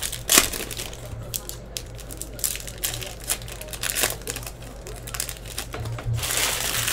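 Foil wrappers of Donruss football card packs crinkling in irregular bursts as they are handled and opened by hand, loudest near the end.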